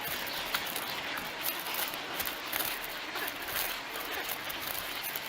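Crowded nesting colony of waterbirds: a dense, unbroken din of many short overlapping calls, the racket of adults squabbling over nest spots and chicks begging for food.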